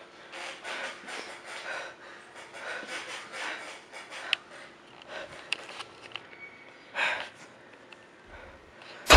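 Quick, heavy panting breaths, two or three a second, with clothing rustling against the microphone and a few faint clicks. Right at the end a loud, sudden, bass-heavy music sting hits.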